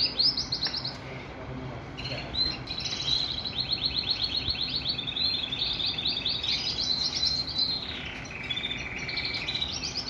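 Agate canary singing in runs of rapid, evenly repeated trills, with a short pause about a second in and a lower-pitched trill near the end.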